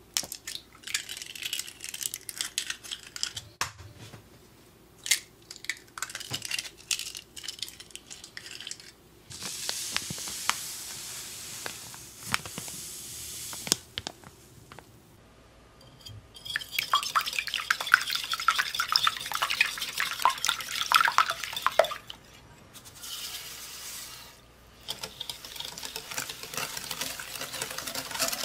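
Kitchen handling sounds on a glass mixing bowl: sharp taps and clicks at first, then a steady hiss of granulated sugar pouring for about four seconds. From about two-thirds of the way in, a wire whisk beats eggs and sugar in the glass bowl, its wires rapidly clicking and scraping against the glass; this is the loudest part.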